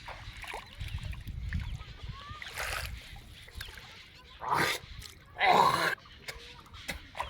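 Water splashing in three short bursts, the second and third louder, about four and a half and five and a half seconds in.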